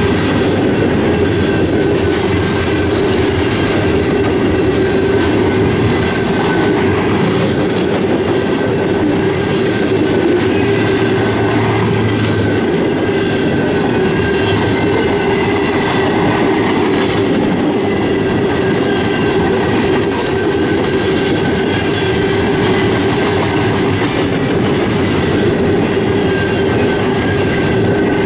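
A freight train of covered hopper and tank cars rolling past close by at a steady speed. Its steel wheels on the rail make a continuous, even rumble and rattle.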